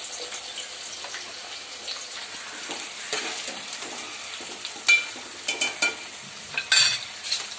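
Sliced onions sizzling as they fry in a steel pot of hot oil, with a steel spoon stirring them and clinking sharply against the pot several times in the second half.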